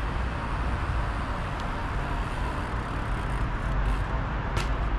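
Steady low outdoor rumble with distant street traffic; near the end, a few sharp knocks as a bicycle's rear wheel hops onto stone steps.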